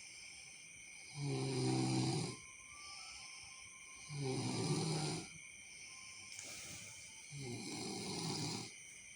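A person snoring: three drawn-out snores about three seconds apart, each lasting about a second.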